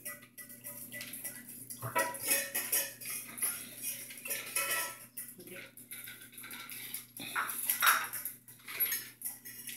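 A pack of small dogs eating from metal and plastic bowls on a hard floor: irregular clinking, rattling and scraping of the bowls as the dogs lick and push them, busiest about two seconds in and near the end.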